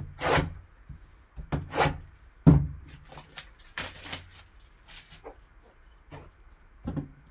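Plastic shrink wrap on a trading-card box being cut and pulled off, giving crinkling, swishing rustles, with knocks and thumps as the box is handled. The loudest is a sharp knock about two and a half seconds in.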